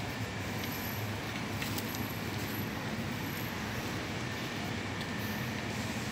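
Steady outdoor urban background noise: an even low rumble with hiss, with no single event standing out.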